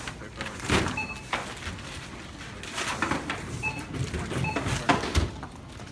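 Knocks and handling clatter, with a few short, high electronic beeps spaced through it.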